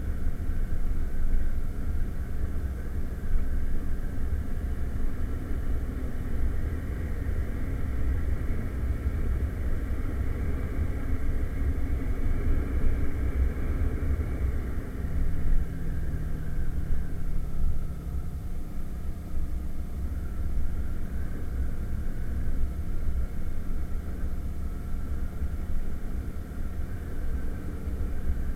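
Irbis Virago 110cc moped's single-cylinder four-stroke engine running under way, its whine climbing about halfway through and then dropping back. Heavy wind buffeting on the camera microphone rumbles underneath throughout. The engine is due for a full rebuild.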